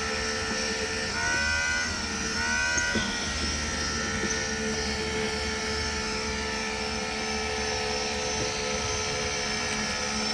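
A 12-volt electric water pump runs with a steady hum. It is sucking air, struggling to prime and build pressure.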